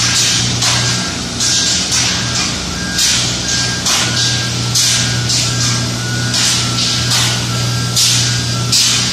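Airless paint spray gun hissing in repeated bursts as each stroke is sprayed, over a steady low machinery hum, with short electronic beeps repeating on and off.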